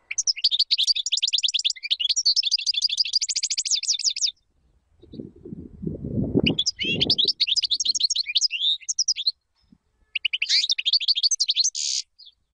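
European goldfinch singing: three phrases of rapid, high twittering, the last ending in a buzzy note. A low, muffled sound comes in the gap after the first phrase.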